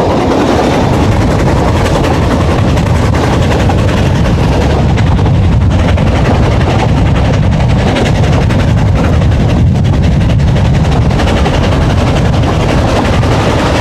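Narrow-gauge steam train running, heard from an open carriage window: a loud, steady rumble of the moving coaches on the track.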